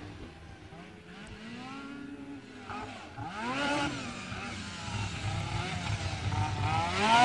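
Snowmobile engine revving up and down as it approaches, its pitch rising and falling with the throttle and growing louder toward the end.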